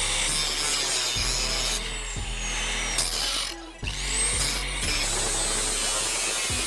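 A handheld power tool grinding and cutting with a harsh rasping noise, as the washing machine's concrete counterweight is being removed. It stops briefly about three and a half seconds in, then spins back up with a rising whine and carries on cutting.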